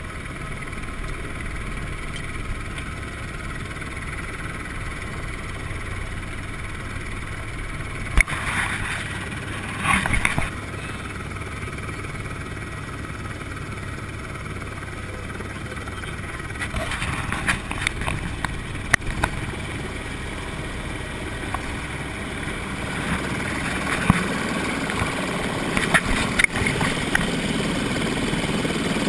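A helicopter running steadily while parked on the ground, heard from inside its cabin, with scattered knocks and clatter. It grows louder over the last few seconds as the cabin door opens.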